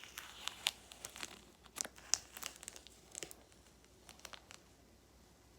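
Adhesive tape being peeled off a phone and crumpled: a run of short crackles and ticks that thins out after about three seconds.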